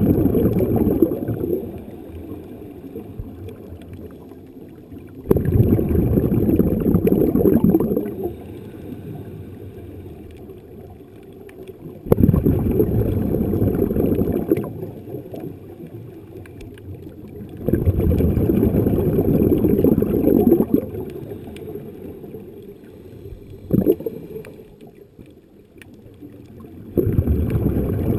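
A Snuba diver's regulator breathing heard underwater: each exhalation is a burst of bubbling lasting about three seconds, recurring roughly every six seconds, five times, with a quieter hiss between breaths. There is one short sharp pop a little past two-thirds of the way through.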